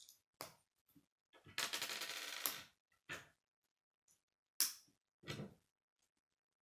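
K'nex plastic rods and connectors being handled and snapped together. There is about a second of rattling plastic clatter, then several sharp clicks as rods snap into the connectors; the sharpest comes a little past halfway.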